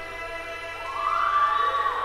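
Music with sustained notes. About a second in, a high held note glides up and swells to the loudest point of the passage.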